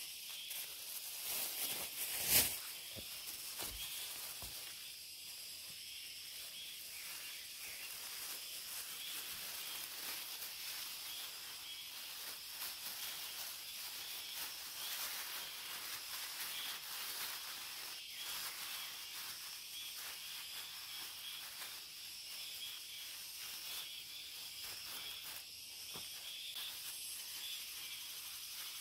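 Leaves being picked and pushed into a clear plastic bag, with the bag crinkling and the foliage rustling, against a steady high insect buzz from the woods. A sharp snap or click comes about two seconds in.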